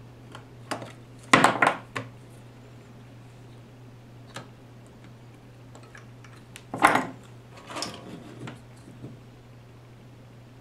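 Metal tools being handled off-camera on a workbench: a few sharp knocks and clattering rattles about a second in, and another cluster about seven seconds in, over a faint steady low hum.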